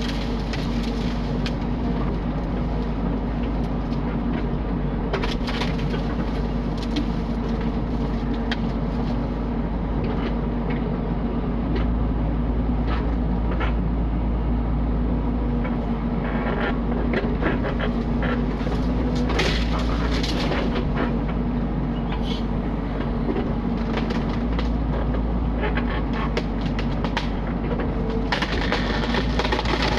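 Mini excavator's engine running steadily under load, with scattered knocks and cracks as it moves heavy timber while stacking cleared land. The cracking and scraping grow denser near the end.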